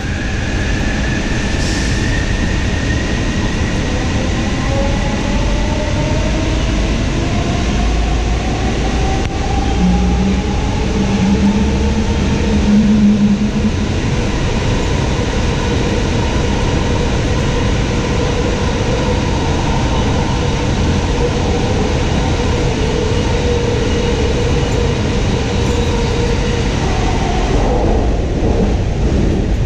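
Inside a JFK AirTrain car, a Bombardier ART train driven by linear induction motors, as it moves along the track. The motor whine rises in pitch as the train gathers speed and then holds steady over the rumble of the wheels. Near the end the pitch drops as the train slows.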